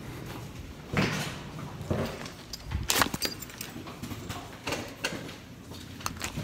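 A phone being carried while walking, jostled against clothing: irregular knocks and rubbing, with the loudest knocks about one and three seconds in.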